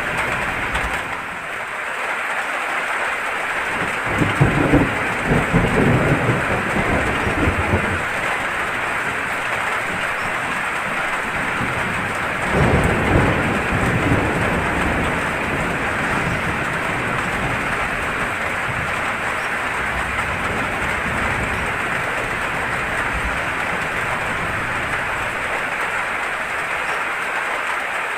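Steady rain with two rumbles of thunder, a longer one about four seconds in and a shorter one around twelve seconds in.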